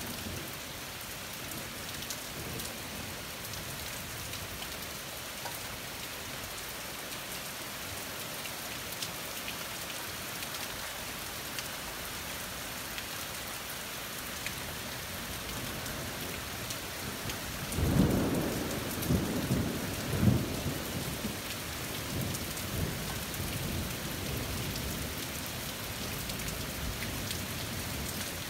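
Steady rain falling throughout, and about two-thirds of the way in a sudden thunderclap that rolls on in several low rumbling peaks for about three seconds before fading back under the rain.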